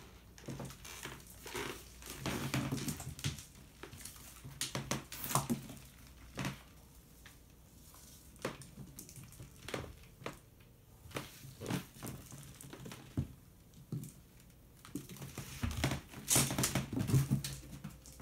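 Irregular taps, clicks and crinkly rustling as a cat plays with a ball-on-a-stick toy on a wooden floor, busier about two seconds in and again near the end.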